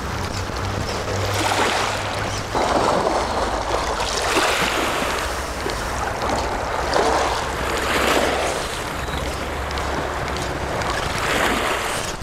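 Sea waves breaking and washing onto the shore, in repeated surges every couple of seconds.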